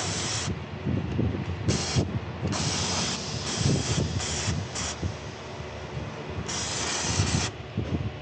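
Short bursts of hissing, about seven of them, some brief and one lasting about a second near the end, over low knocking and handling noise.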